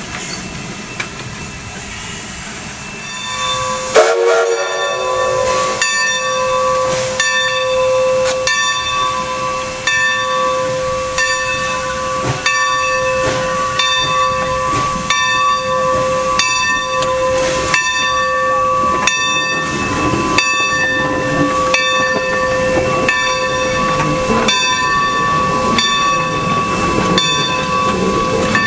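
Steam locomotive bell ringing steadily from about four seconds in, a little under two strokes a second, each stroke leaving a sustained ring. The engine is 2-8-2 Mikado No. 45. Steam hisses underneath.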